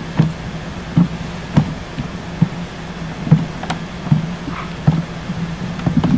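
A series of short clicks at fairly even spacing, roughly one every three-quarters of a second, over a steady low hum.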